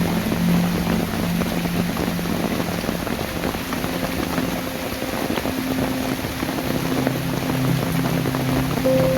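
Rain falling steadily, an even hiss of drops, with faint held tones of background music under it.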